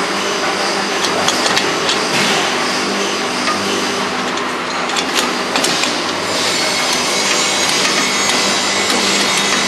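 Metal clinks, knocks and scraping as hands work the clamps and fittings on the stainless-steel lid of a lab-scale process kettle, over a steady machine hum.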